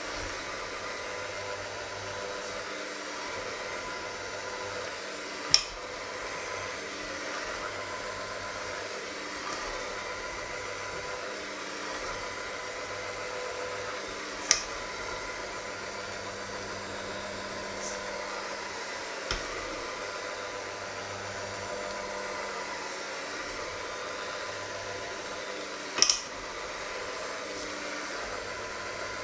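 Electric hand mixer running steadily at one speed, its beaters whisking a pale mixture in a stainless steel bowl. Three sharp clinks stand out, about 5, 14 and 26 seconds in, as the beaters knock against the metal bowl.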